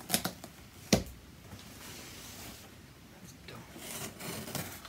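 A blade cutting the packing tape on a cardboard shipping box, then the box being handled. A few clicks at the start and a sharp knock about a second in, followed by a long scratchy rasp and more rustling of cardboard.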